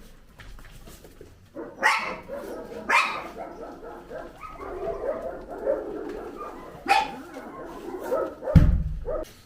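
Dogs barking, with sharp barks about two, three and seven seconds in and more barking between them. A loud low thump comes near the end.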